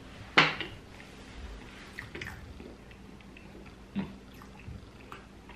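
A person eating close to the microphone: scattered mouth smacks and clicks. The sharpest comes about half a second in, with a few fainter ones after it.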